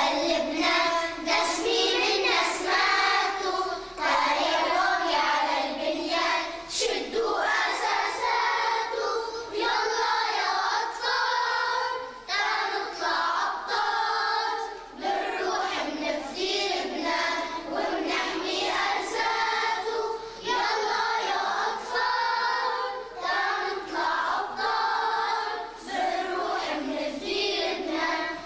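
A choir of young schoolchildren singing a song together in unison.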